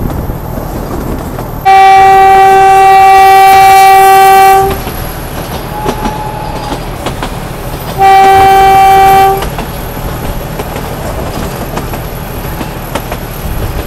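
ZDM-4A narrow-gauge diesel locomotive's horn sounding twice: a long, steady blast of about three seconds, then a shorter one about three seconds after the first ends. Both sound over the steady running noise of the moving train.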